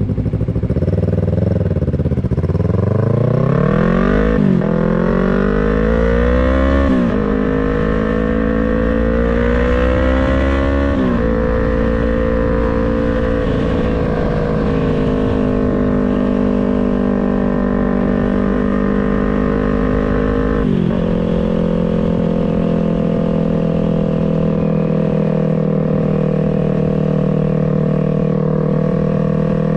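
2023 Yamaha MT-03's 321 cc parallel-twin engine and exhaust under way. It accelerates up through the gears, the note climbing and dropping at each upshift about 4, 7 and 11 seconds in, then holds a steady cruise, with another drop in pitch about 21 seconds in.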